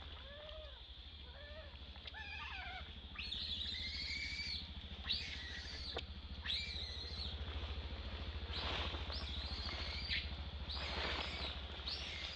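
Infant macaque calling in distress, as a baby separated from its mother does. It gives a few short, soft, arched coos, then from about three seconds in a run of high, wavering screeches about a second long each, repeated roughly every second.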